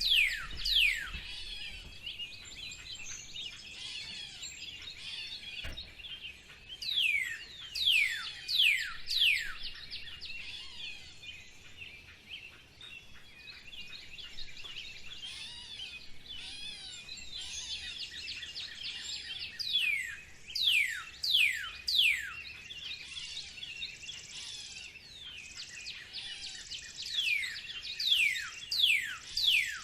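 Spring birdsong: several birds calling together. Four bouts of loud, quick, downward-sweeping whistled notes stand out over a constant background of softer chirping.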